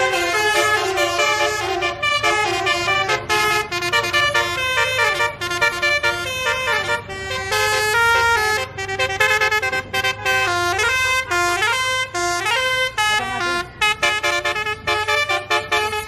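Multi-tone 'telolet basuri' horn of a tour coach playing a tune: a quick run of stepped notes with a few sliding pitches, over the low hum of the running engine.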